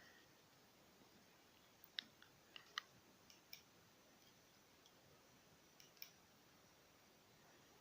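Near silence broken by a few faint, sharp clicks, mostly in pairs, clustered a couple of seconds in and again around six seconds in.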